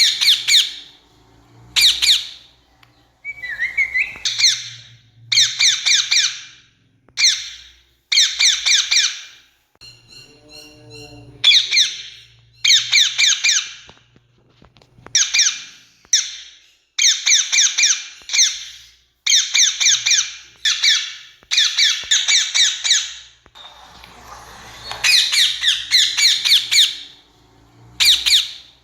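Rose-ringed parakeet (Indian ringneck) calling: repeated bouts of high-pitched screeching notes, each bout from about half a second to two seconds long, separated by short pauses. A fainter, softer call breaks the pattern about ten seconds in.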